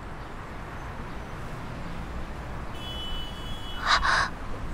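Low, steady street background of traffic, with a thin high tone near three seconds in and a short, sharp noisy burst about four seconds in.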